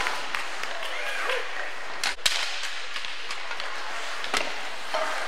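Ice hockey rink sound heard from the stands: a steady hiss of skates on the ice, broken by sharp knocks of sticks and puck, the loudest about two seconds in and another about four seconds in.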